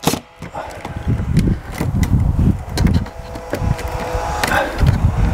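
Cordless drill driving a screw through the base of an outdoor bulkhead light: a steady motor whine that stops near the end, over a low rumble.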